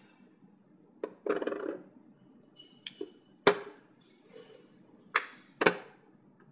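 Steel parts of a disassembled VE injection pump (roller ring, cam plate, drive shaft) handled and set down on a work tray: about six sharp metallic clinks and knocks with a short rattle about a second in, the loudest knock about halfway through.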